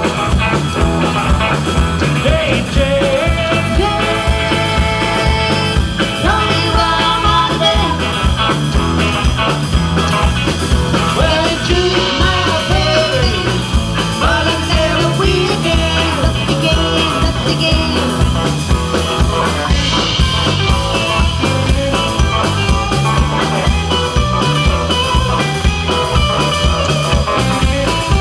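Live southern country rock band playing loud: electric guitar over a steady drum beat.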